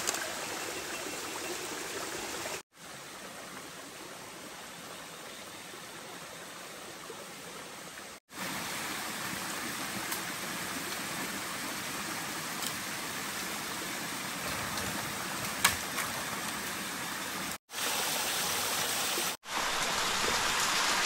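Running stream water, a steady rush, with a few faint clicks. The sound cuts out briefly four times.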